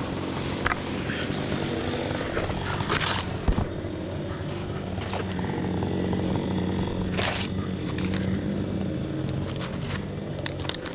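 Chainsaw engine running steadily, with a few short sharp sounds over it.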